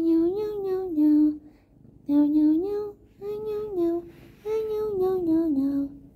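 A high voice singing a simple sing-song tune in four short phrases, with brief pauses between them.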